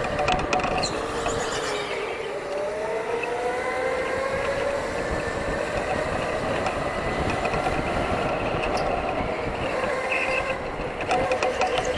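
Electric racing go-kart's motor whining on track, its pitch dipping and rising again as the kart slows for corners and accelerates out, over rattle and tyre noise from the kart.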